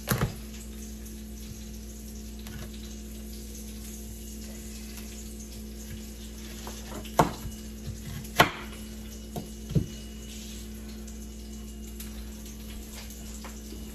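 A few sharp, widely spaced knocks of a chef's knife on a plastic cutting board while an onion is cut, over the steady hiss of salmon frying in olive oil and a low steady hum.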